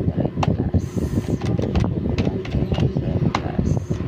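A woman's voice muttering low and indistinct over a steady low rumble.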